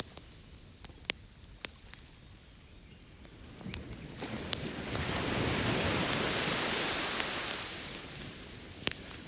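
Campfire crackling, with sharp single pops scattered throughout. Partway through, an ocean wave washes in, swells for a few seconds and then recedes.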